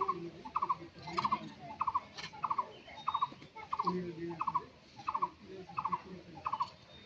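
A bird calling: a short phrase of three or four quick notes, repeated steadily about every two-thirds of a second.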